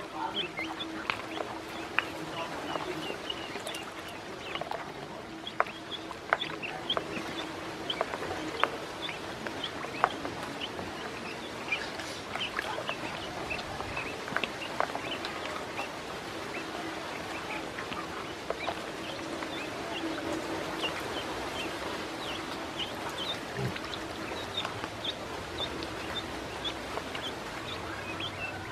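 A flock of ducklings peeping constantly in short, high chirps while they swim in a tub of water, with scattered sharp clicks and small splashes.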